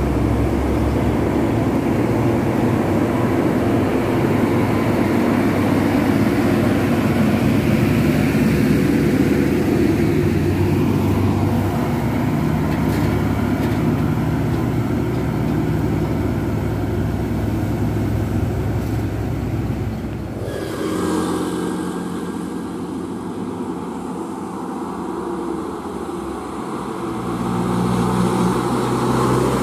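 Heavy diesel trucks hauling crane parts pass close by, their engines running under load with tyre noise. About twenty seconds in the sound cuts to a UD Quester tractor unit's diesel engine approaching, growing louder near the end.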